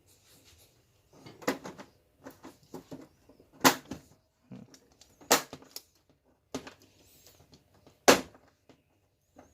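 Plastic frame of an LED TV panel being pressed onto its snap-lock clips: about five sharp clicks and knocks at uneven intervals as the clips latch one after another.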